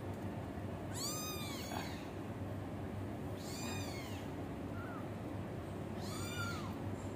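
One-month-old kitten meowing: three high-pitched calls that rise and fall, about two and a half seconds apart, with a tiny chirp between the last two. These are hungry kittens crying for more milk during feeding.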